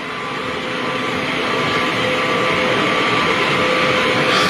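A bus running close by, its engine and road noise growing steadily louder, with a faint steady whine over it.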